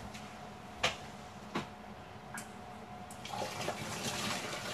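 A few light knocks of a pot being handled, then about three seconds in, a steady rush of water begins as the cooking water is poured off boiled spiralized zucchini to drain it.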